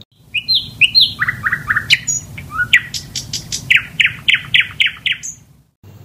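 Nightingale singing: a few quick high notes, then a run of repeated notes, then a faster series of about five down-slurred notes a second, stopping shortly before the end.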